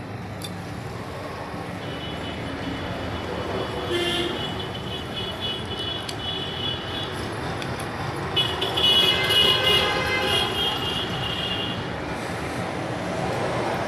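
Steady motor-vehicle noise with a high, steady tone over it, heard from about two seconds in to about seven seconds, then louder again from about eight to twelve seconds.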